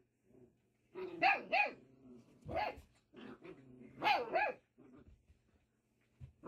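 Six-week-old Pyredoodle (Great Pyrenees × poodle) puppies barking while play fighting: about five short puppy barks, coming in quick pairs and singles.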